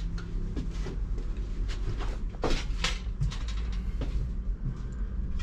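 Scattered knocks and clunks of cockpit fittings being handled and moved, over a steady low rumble.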